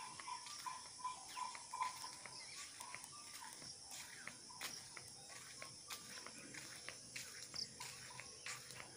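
Steady high trilling of insects, with a quick run of short, evenly spaced chirps over the first two seconds and scattered small clicks and chirps throughout.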